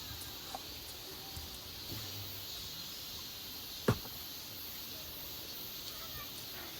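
Quiet outdoor ambience with faint, steady insect chirring, and a single sharp click about four seconds in.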